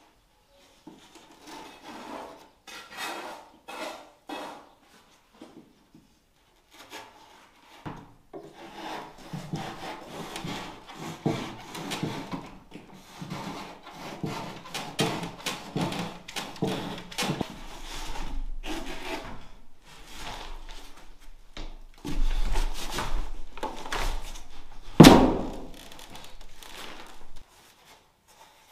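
Hand saw cutting through a rigid foam insulation board in irregular rasping strokes, sparse at first and then steady and dense. A sharp knock comes about 25 seconds in, the loudest sound, before the sawing stops near the end.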